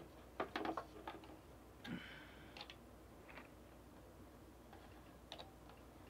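A quick run of light clicks and taps, then a short rustle about two seconds in and a few single clicks: small hard objects being handled on a desk.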